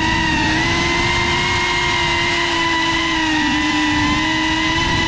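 GEPRC CineLog35 cinewhoop drone's brushless motors and ducted propellers whining at a steady pitch over a rush of propeller wash, the pitch dipping slightly a couple of times in the second half.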